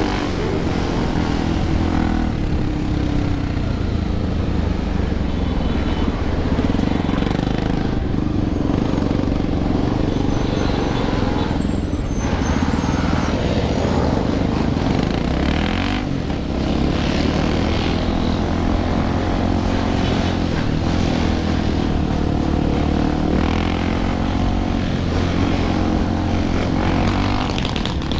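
A large pack of motorcycles running and revving together, many engine notes rising and falling over one another.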